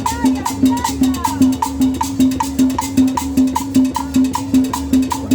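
Cumbia music with a steady, even percussion beat, about three beats a second.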